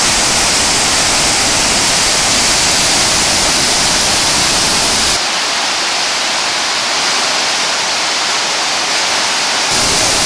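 Dhuandhar Falls on the Narmada River: heavy white water crashing over rock ledges in a loud, steady rush. About five seconds in, the deep rumble drops away, leaving a thinner hiss, and it comes back near the end.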